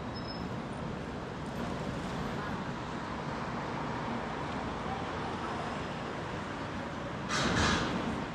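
Steady city road traffic noise, with a brief louder hiss about seven seconds in.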